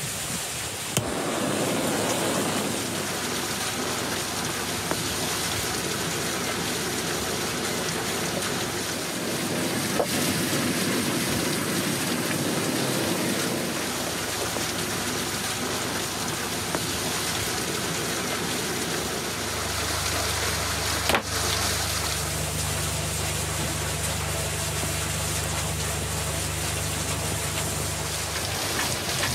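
Steady rain pattering on surfaces, an even hiss throughout. About two-thirds of the way in a low steady hum joins it, with one sharp click just after.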